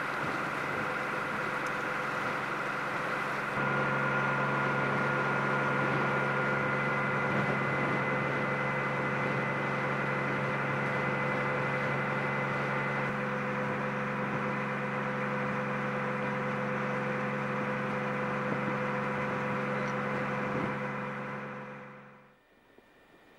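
A ferry boat's engine running with a steady drone. It gets louder a few seconds in and fades out near the end.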